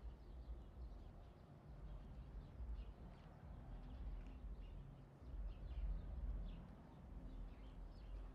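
Faint outdoor ambience: scattered short, high chirps of distant birds over a low rumble on the microphone that swells about six seconds in.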